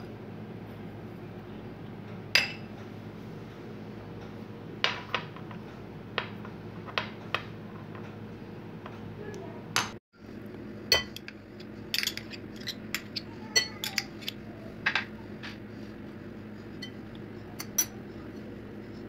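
Scattered sharp clinks and taps against a glass mixing bowl as dough ingredients are added and worked in, over a steady low hum.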